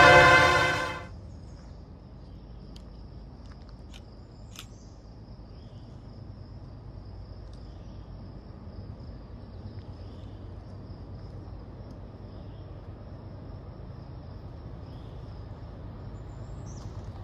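A locomotive horn chord cuts off abruptly about a second in. After it comes a steady high insect drone with a few short bird chirps and calls every few seconds, over a faint low rumble that grows slightly toward the end.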